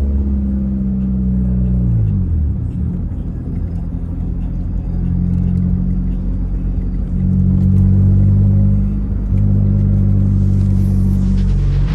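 Honda Civic EJ6's four-cylinder engine pulling along a mountain road; its pitch falls about two seconds in, then holds steady and gets louder from about seven seconds. A short rushing noise comes in near the end.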